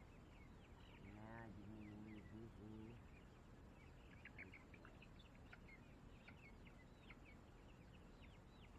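Faint bird calls: many short, high, downward-sweeping chirps throughout, and a lower call broken into short pieces from about one to three seconds in.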